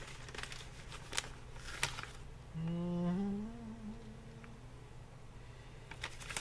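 A man hums a short phrase of a few notes stepping upward, lasting about a second and a half near the middle. Light crinkling and clicks of handling come before and after it.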